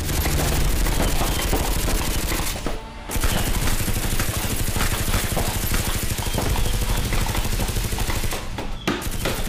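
Rapid automatic fire, a dense continuous run of shots that breaks off briefly twice, about three seconds in and near the end.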